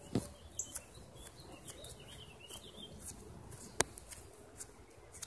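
Faint bird chirps in the background, with a single sharp click a little under four seconds in.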